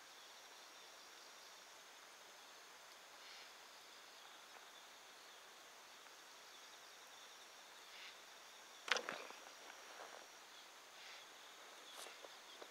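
Faint insect chirring: a steady high pulsing trill. A sharp knock comes about nine seconds in and a lighter click near the end.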